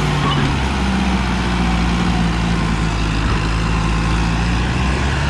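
Sonalika DI-750 III tractor's diesel engine running hard under load with a steady, deep drone, hauling a sand-loaded trolley out of soft sand.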